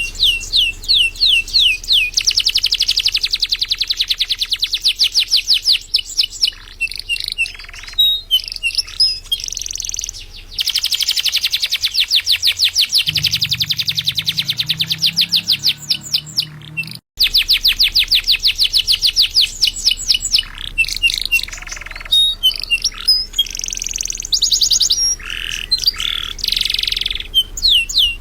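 Domestic canary singing loudly: long runs of very fast rolling trills mixed with separate chirps, with a sudden brief break about two-thirds of the way through.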